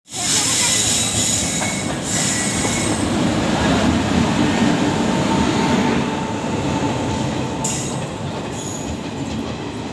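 Indian Railways WAP-7 electric locomotive and ICF passenger coaches rolling past close by as the train slows into a station. The wheels make a rumbling clatter, and a steady high squeal eases off near the end.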